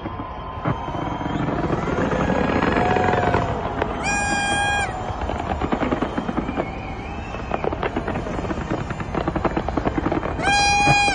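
Fireworks crackling and popping in rapid, dense volleys over a steady crowd hubbub. A loud, steady horn-like tone sounds for about a second twice, about four seconds in and near the end.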